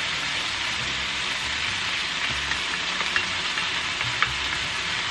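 Tofu and vegetable stir-fry sizzling steadily in a hot skillet as teriyaki sauce is poured in, with a few faint clicks.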